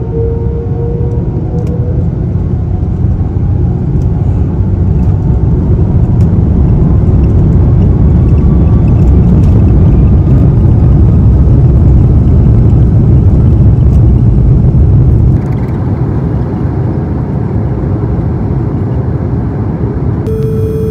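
Airbus A330-300 on its takeoff roll, heard from inside the cabin: a loud low rumble of engines and runway that builds, with a faint engine whine rising in pitch. The rumble drops suddenly about fifteen seconds in.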